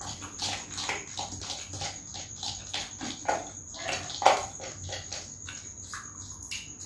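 Close-up mouth sounds of two people eating spicy instant fried noodles: irregular chewing, smacking and slurping, with the loudest slurp about four seconds in. A steady high whine runs underneath.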